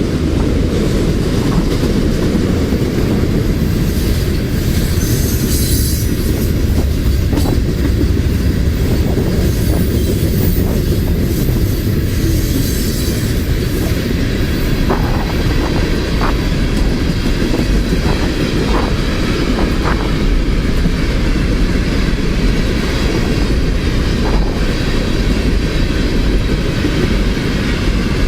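Freight cars of a Union Pacific train rolling past at about 33 mph: a steady heavy rumble of steel wheels on rail, with clacks over rail joints and brief wheel squeals.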